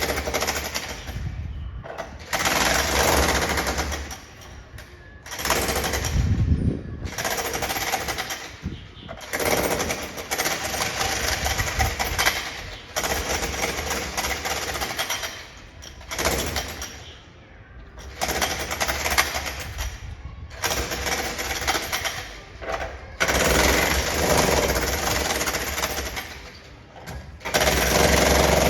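Power demolition hammer chiselling a concrete floor during a flat renovation, heard from the neighbouring flat. It hammers in runs of one to three seconds with short pauses between them, about ten runs in all.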